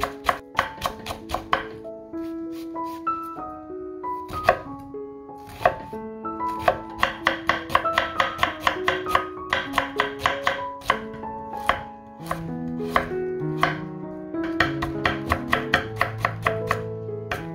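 Chef's knife chopping vegetables on a wooden cutting board: green onion, then onion, then carrot, in quick runs of sharp strokes. Light instrumental music plays underneath.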